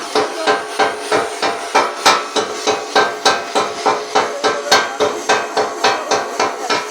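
A hammer striking metal in a steady run of about four blows a second, and the metal rings between the strikes.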